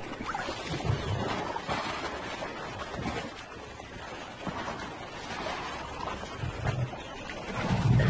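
Water sloshing and lapping around animals moving in a river, with a few low thuds and a louder low rumble near the end.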